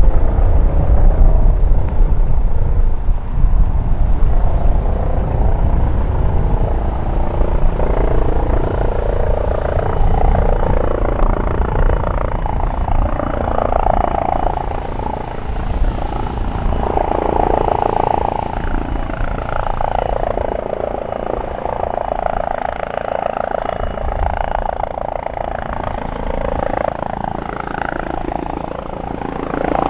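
Airbus H135 helicopter, with twin Pratt & Whitney PW206B3 turboshaft engines, flying an approach to land: a continuous loud rotor and turbine drone that shifts and swells as it comes closer.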